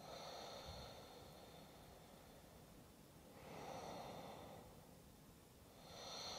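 Near silence with faint, slow breathing: three soft breaths, one near the start, one about three and a half seconds in, and one near the end.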